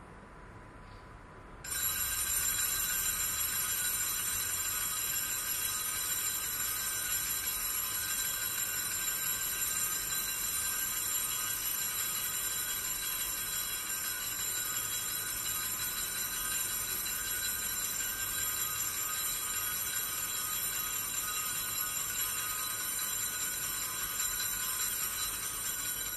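Small altar bells rung continuously as the priest gives the blessing with the monstrance at Benediction of the Blessed Sacrament. The bright, jangling ringing starts about two seconds in and stops near the end.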